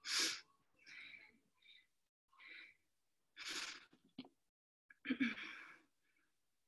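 A woman breathing hard in a series of audible breaths and sighs, the loudest right at the start, as she catches her breath after an exercise set. There is a short click about four seconds in.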